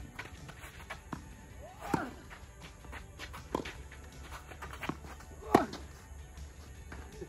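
A tennis rally: balls struck by rackets and bouncing on the court, sharp separate knocks every second or so. The loudest knock, about five and a half seconds in, is the near player's forehand.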